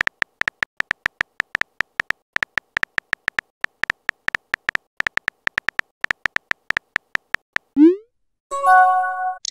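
Synthetic keyboard-tap clicks of a texting-story app, about five or six a second, as a message is typed. Near the end a short rising swoop and a brief chime-like chord mark the message being sent.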